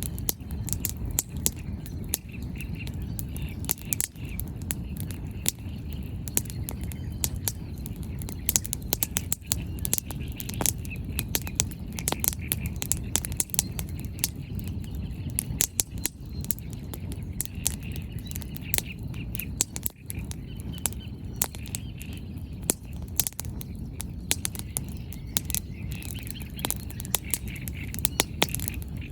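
Wood bonfire burning, its firewood crackling and popping in many irregular sharp snaps over a steady low rush. Birds chirp faintly at times.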